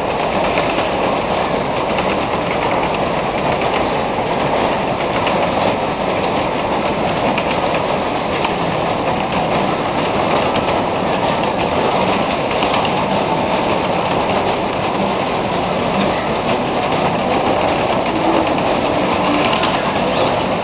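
A Skid fairground ride over 70 years old, running at speed: a steady, loud rumble with a dense rattle as its cars roll round the track.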